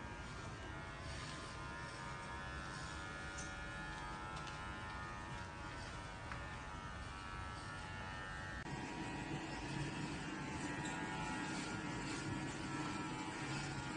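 Electric hair clippers buzzing steadily as they shave a head. The buzz shifts in tone and gets slightly louder about nine seconds in.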